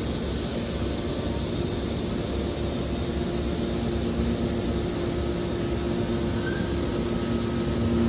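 Hydraulic scrap-metal baler's power unit running steadily: a constant mechanical hum with a steady low whine from the motor and hydraulic pump.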